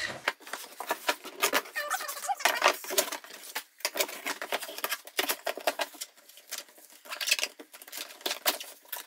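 Cardboard box and its cardboard inserts being handled and moved: irregular scrapes, taps and rustles.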